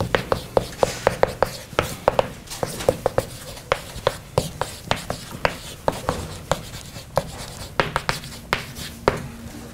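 Chalk writing on a blackboard: a quick run of taps and short scrapes as letters are chalked on, about three strokes a second, stopping near the end.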